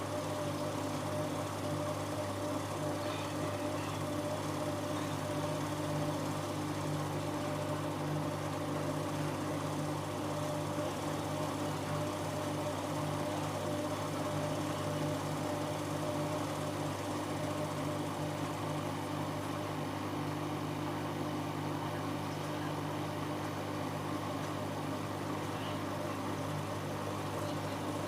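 Siemens Siwamat 7163 washing machine running with a steady, even motor hum.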